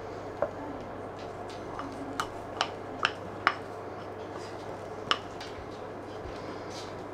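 A small ceramic bowl clinking against a cooking pot as rice is scooped and packed into it, in several sharp, separate clinks, most of them between two and four seconds in. A faint steady hum runs underneath.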